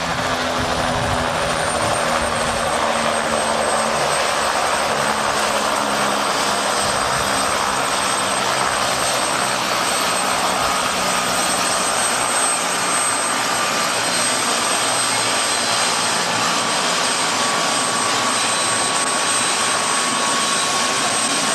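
Bell 206 JetRanger helicopter running on the ground with its rotor turning: a steady high turbine whine over the rush of the rotor and engine.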